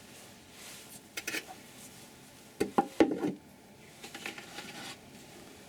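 Light knocks and clinks of woodturning tools being set into a wooden tool holder. A few sharp ones come just after the first second, and a cluster comes around three seconds in.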